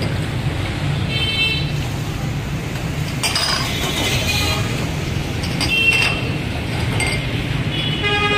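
Drinking glasses clinking against each other and a stainless-steel counter as syrup is poured and the glasses are moved, several separate short ringing clinks over a steady low background rumble.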